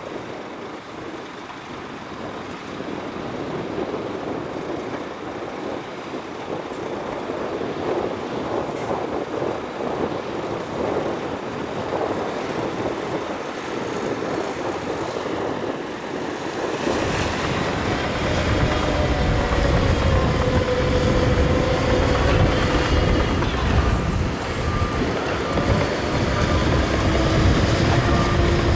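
Heavy Shantui crawler bulldozer working: engine and machinery rumbling steadily. About halfway through it gets much louder and deeper, with a steady whine over the rumble.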